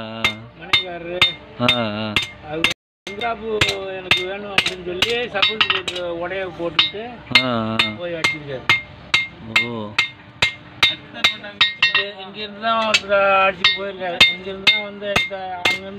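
Hand hammer striking a red-hot steel billhook blade on an iron anvil, forging the old knife back into shape. The blows are sharp, ringing and evenly paced at about two a second, with a short break about three seconds in. A person's voice runs underneath.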